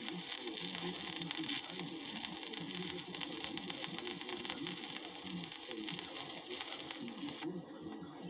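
Electric arc welding: the arc crackles and hisses steadily, then cuts off suddenly about seven and a half seconds in as the arc is broken.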